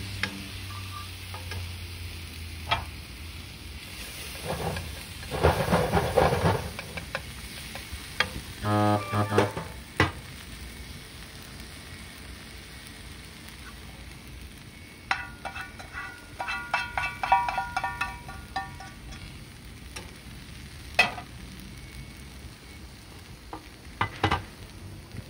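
Yakisoba noodles and bean sprouts sizzling in frying pans, stirred and tossed with long chopsticks: a steady frying hiss with scattered clicks and scrapes of chopsticks against the pans, and a few louder stretches of clatter.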